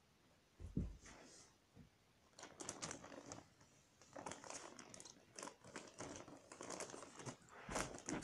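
Faint rustling and crinkling with small clicks, with a soft thump about a second in and another near the end: someone rummaging through toys to fetch another plastic figure.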